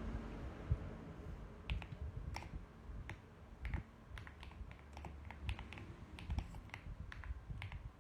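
Typing on a mechanical keyboard: irregular keystroke clicks, several a second, starting about a second and a half in.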